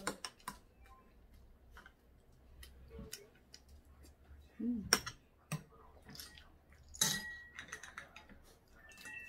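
Eating at the table: a metal spoon clinking and scraping in a ceramic bowl, with scattered clicks and taps of shells and dishes. The loudest clinks come about five and seven seconds in, the later one ringing briefly.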